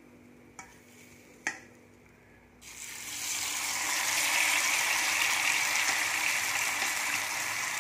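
Two light clicks, like a wire skimmer tapping a bowl, then a little over two seconds in hot oil in a steel kadai starts sizzling. The sizzle swells and holds steady as masala-coated cauliflower pieces deep-fry.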